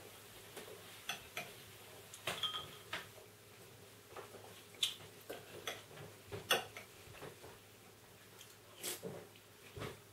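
Metal spoon clinking and scraping against a ceramic cereal bowl while eating, in scattered irregular taps, one ringing briefly about two seconds in.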